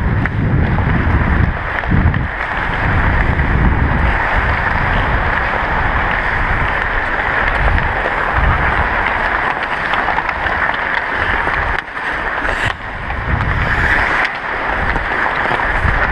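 Steady rushing noise from a skating ice hockey player's action camera: wind over the microphone mixed with skate blades cutting the ice. The level dips briefly twice in the second half.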